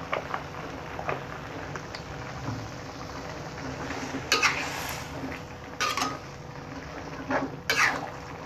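A metal spatula scraping and knocking against a metal wok as vegetables are stirred, with the strongest scrapes about four, six and seven and a half seconds in. Under it is the steady hiss of the vegetables cooking in the pan.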